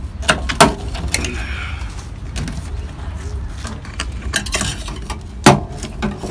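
Plastic push-in clips of a cardboard-backed car door trim panel being pried loose, with a few sharp snaps and some scraping, the loudest snap near the end.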